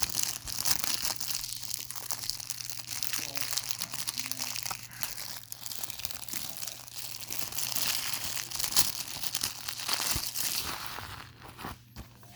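Plastic shrink-wrap being torn and peeled off a DVD case, a continuous crinkling and crackling that dies down about a second before the end.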